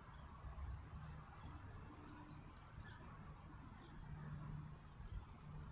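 Quiet outdoor ambience: faint high bird chirps in quick short notes from about a second in, over a low steady rumble.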